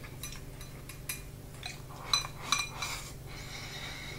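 Wooden chopsticks clicking and scraping against a porcelain rice bowl while rice is scooped up, with a few light clinks that ring briefly, the loudest a little past two seconds in.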